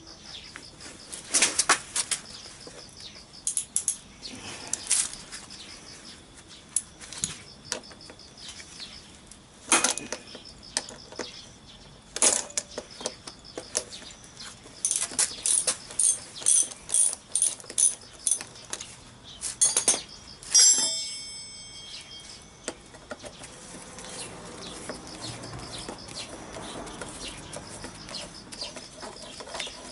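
Socket ratchet wrench clicking in repeated bursts as bolts on a scooter engine case are worked. About 21 seconds in, a metal tool clanks and rings briefly.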